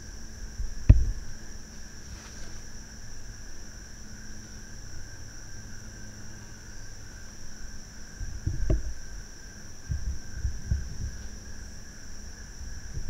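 Steady insect chorus droning in two high bands, with several low thumps and bumps of camera handling, about a second in and again a few times in the last five seconds.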